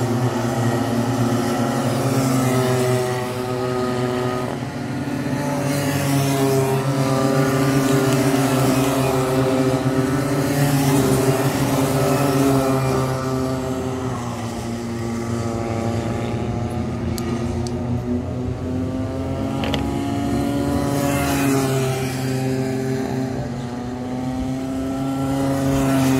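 A pack of Rotax Micro Max racing karts with small two-stroke engines running on the circuit. Several engine notes overlap, each rising and falling in pitch as the karts accelerate out of corners and lift off, swelling louder as the pack passes nearby.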